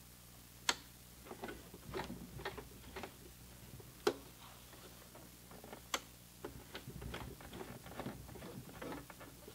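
Baby Lock BL9 mechanical sewing machine worked slowly by hand over a thick denim side seam: irregular clicks and taps from the needle, presser foot and hand-wheel mechanism, with three sharper clacks spread through. There is no steady motor run, only single hand-turned stitches.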